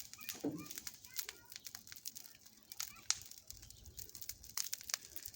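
Dry grass and brush in a bonfire pile crackling with irregular sharp pops as the fire catches.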